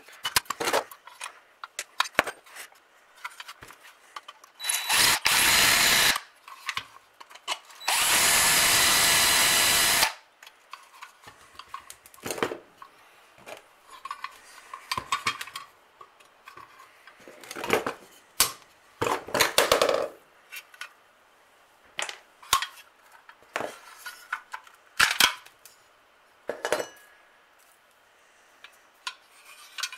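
Cordless drill running in two short bursts, the second about two seconds long, drilling into a part of a die-cast toy tractor while taking it apart. Around the bursts come scattered small knocks and clinks of metal parts and tools being handled on the bench.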